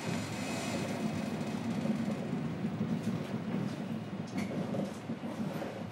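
Onboard running sound of a JR Kyushu 103 series electric train, heard inside motor car MoHa 102-1518: a steady rumble of wheels and running gear on the rails, with a few sharp clicks and the level easing slightly near the end.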